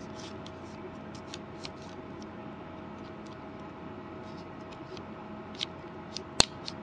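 Small clicks and taps of a 3.5-inch floppy disk's plastic shell and metal shutter being handled, with a few sharper clicks near the end, one of them louder than the rest. A faint steady hum and hiss lie underneath.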